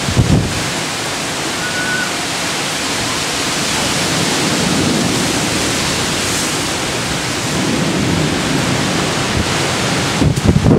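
Heavy thunderstorm rain and gusty wind making a steady, loud rushing hiss. There is a low buffet at the start, and gusts buffet the microphone near the end.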